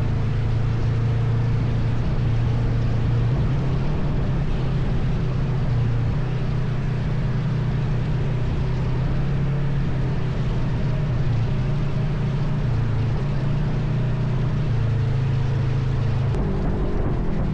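ATV engine running steadily while riding, over a steady rush of noise. Its note shifts about a second before the end.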